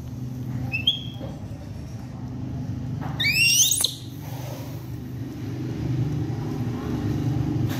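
A young macaque gives a short high squeak about a second in, then a louder high, wavering squeal lasting under a second about three seconds in. A steady low rumbling hum runs underneath throughout.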